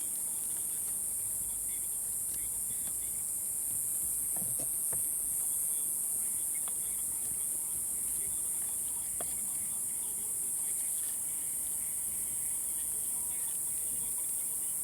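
A steady high-pitched hiss, with a few faint clicks.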